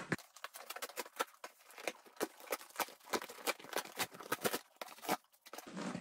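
Cardboard shipping box torn open by hand: a quick, irregular run of short sharp rips and crackles.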